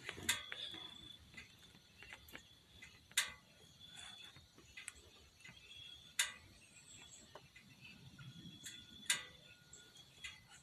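Quiet outdoor background with four sharp clicks or snaps about three seconds apart and a faint, high, steady tone coming and going.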